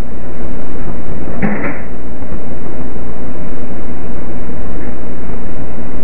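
Loud, steady hiss from a security camera's microphone turned up high, with one short, faint sound about one and a half seconds in.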